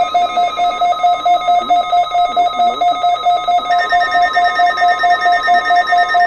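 Weather radio receivers sounding their alert alarms: a loud electronic beep pulsing rapidly, with a second, higher alarm joining about halfway through. Under them runs the broadcast's steady warning alarm tone, which sets the alarms off during the weekly test.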